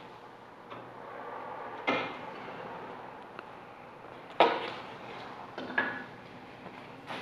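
A few sharp knocks and clatters of wood and metal being handled at a shaper table, the loudest about four and a half seconds in, as boards are moved and the power feeder's mounting arm is worked.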